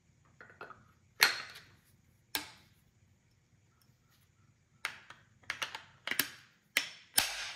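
Sulun SC-213 side-by-side coach shotgun being reassembled: a run of sharp metal clicks and clunks as the barrels are hooked onto the action and the gun is closed. The loudest clack comes about a second in, and the last and another loud one come near the end.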